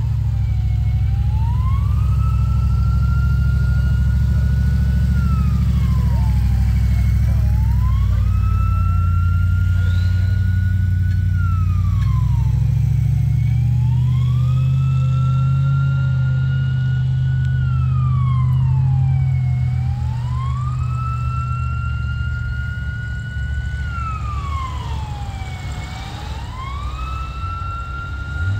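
A vehicle engine running with a steady low rumble, under a siren-like wail that drops quickly in pitch and slowly climbs back, repeating about every five seconds. The engine rumble eases about two-thirds of the way through.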